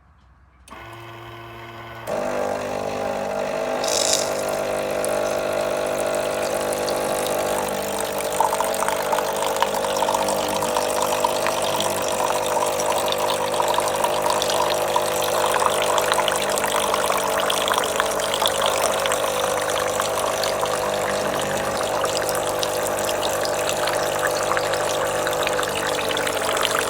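Bean-to-cup coffee machine's pump running with a steady hum while liquid flows, coming on in two steps in the first two seconds.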